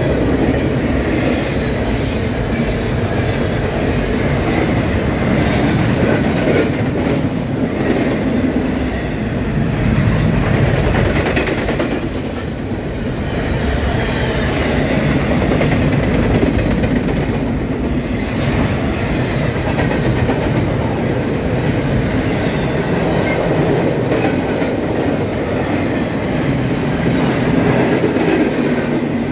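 Norfolk Southern freight train's intermodal well cars rolling past at close range: a steady rumble of steel wheels on rail, with occasional clacks over the rail joints.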